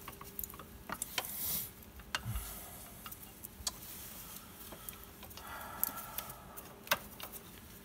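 Scattered light clicks and small knocks as a gloved hand works a bracket free of its clip on a coolant hose in an engine bay, with a short rustle about a second in.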